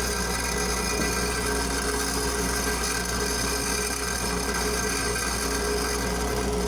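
Electric grinder running steadily, smoothing a homemade oversized steel helicoil insert for a final finish.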